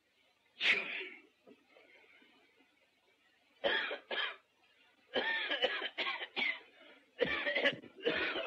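A man with a head cold coughing in several short fits, with throat clearing. There is one burst about a second in, then repeated coughs from about four seconds to the end.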